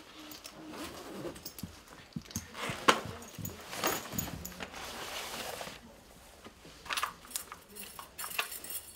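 Handling noises: a backpack's fabric rustling and its fittings clicking as it is searched, then sharper clicks near the end as a gun is lifted out of it.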